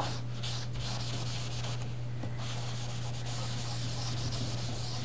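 Folded paper towel rubbed back and forth over pigment-inked vellum cardstock, buffing and blending the ink: a steady, even scratchy rubbing over a constant low hum.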